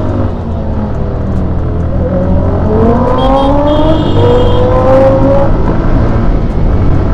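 Motorcycle engine accelerating hard through the gears: its pitch rises in three successive sweeps, each dropping back at a gear change, over wind rush and a steady low rumble.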